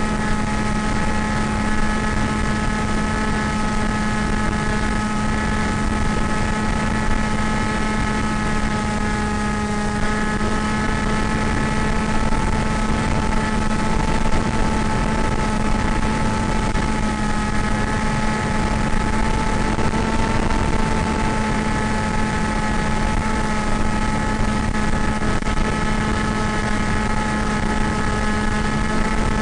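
Electric RC plane's pusher motor and propeller running steadily in flight, a constant drone with a whine of a few steady tones over a hiss of wind and noise. The pitch shifts slightly about ten and twenty seconds in as the throttle changes.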